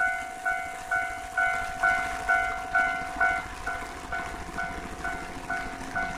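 Japanese railway level-crossing warning bell ringing: a repeated clanging tone, a little over two strokes a second, each stroke dying away quickly. It becomes somewhat softer about halfway through.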